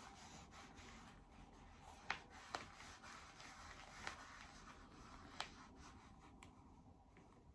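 Near silence: faint rustling of a tanning mitt being worked over the face, with four soft taps.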